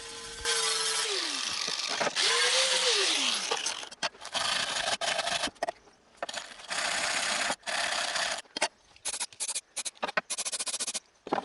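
MIG welder laying spot and tack welds on thin car-body sheet steel: a run of crackling, hissing bursts that stop and start. Near the end the bursts become short and quick, with gaps between them.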